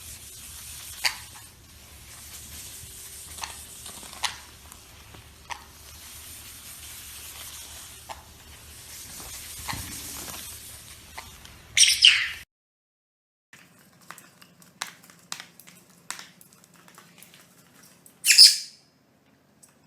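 Pet parrots making scattered short clicks and chirps, with two loud shrill screeches: one about twelve seconds in and one near the end.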